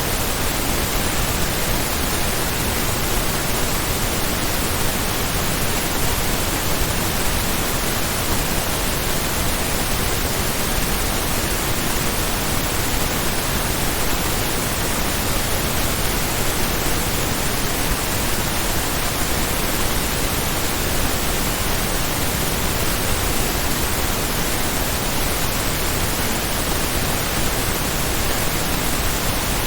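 Steady pink noise test signal: an even hiss spread across all frequencies, unchanging throughout.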